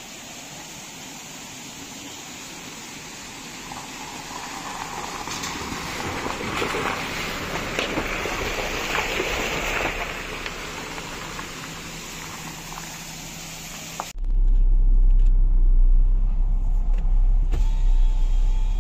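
Mahindra Scorpio-N SUV driving past on a wet gravel track: tyre crunch on loose stones and engine noise grow louder as it nears and passes, then ease off. About fourteen seconds in, this cuts to a steady low rumble inside the moving car's cabin.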